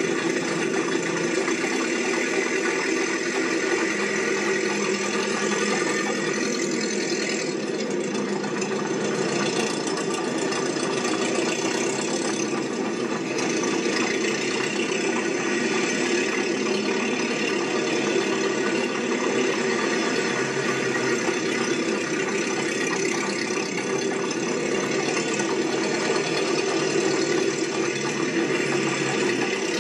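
Steady mechanical running with a rattle, like an engine at idle, holding an even level throughout.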